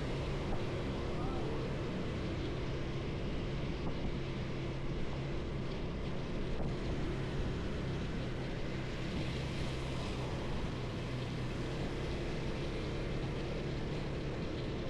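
Motorcycle engine running at a steady speed, a low even hum, under wind and road noise.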